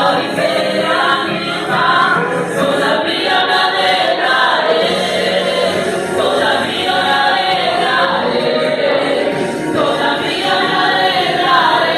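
Church worship group singing together as a choir, a steady gospel hymn with several voices.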